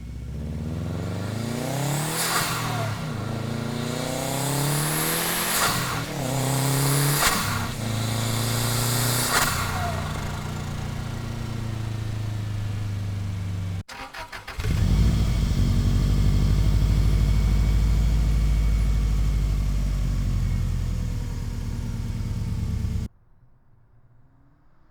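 1996 Subaru Impreza WRX's turbocharged flat-four engine revved four times, each rev rising and falling in pitch with a short hissing burst near the top. About 14 seconds in, after a brief stutter, the engine runs loud and steady at a low pitch until it cuts off about 23 seconds in.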